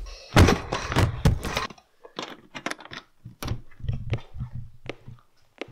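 Handling noises from a metal briefcase: a dense clatter and rustle in the first second and a half, then scattered sharp clicks and knocks as its latches are worked.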